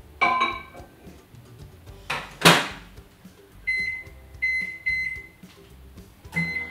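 Microwave oven being loaded and set: a ceramic mug clinks as it goes in, the door shuts with a loud clunk, then several short keypad beeps as the cooking time is entered.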